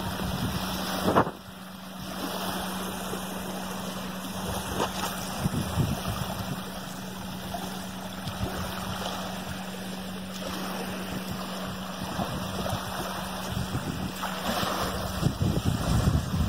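Small waves lapping at the shore, with wind buffeting the microphone in uneven gusts over a steady low hum. A short knock about a second in is followed by a moment of lower level.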